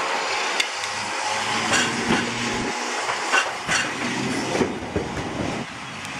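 Toyohashi Railway 3200-series streetcar pulling away and passing close by, its nose-suspended traction motors growling under a steady rumble, with a series of sharp knocks as the wheels cross the track.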